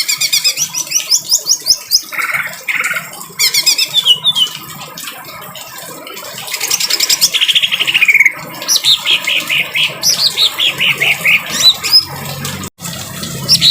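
Cucak ijo (green leafbird) singing in harsh, rough phrases: bursts of fast, quickly repeated notes, some falling in pitch, with short pauses between them. The audio drops out for an instant near the end.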